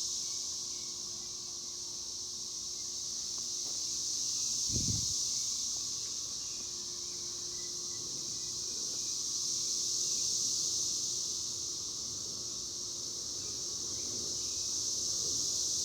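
Chorus of cicadas buzzing in the trees: a dense, high-pitched drone that swells and eases slowly every few seconds. A brief low thump about five seconds in.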